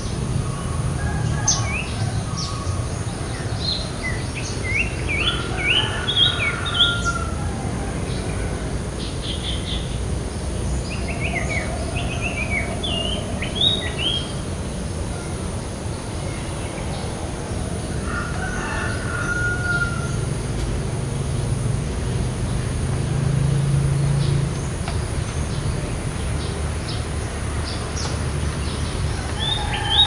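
Trilling shrike-babbler singing: short phrases of quick, shrill, rising notes repeated every several seconds, with a few short level whistles between them. A steady low rumble runs underneath and swells briefly about three-quarters of the way through.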